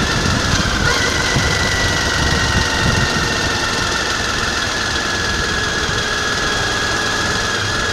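Suzuki V-Strom DL1000 motorcycle's V-twin engine running at a steady road speed, mixed with wind and road noise.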